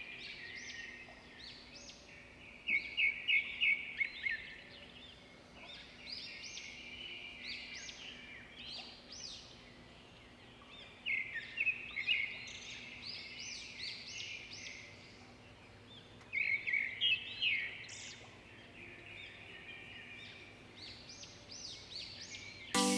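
Small birds chirping throughout, with louder runs of quick chirps about three, eleven and sixteen seconds in.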